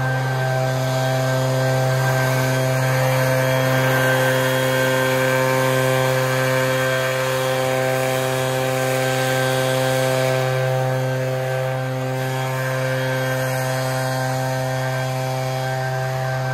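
Echo PB-8010 backpack leaf blower running steadily: the two-stroke engine's even drone under the rush of air from the blower tube.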